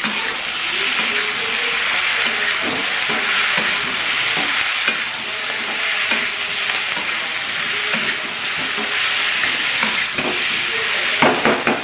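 Potatoes, eggplant and spring onion stalks sizzling in hot oil in a wok while a metal spatula stirs and scrapes through them. A quick run of clatters comes near the end.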